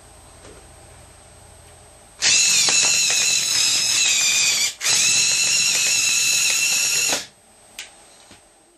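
Small LEGO Technic electric motors running through plastic gearing with a high-pitched whine. It runs for about two and a half seconds, breaks off for an instant, runs again for about as long, and stops sharply. A faint click comes near the end.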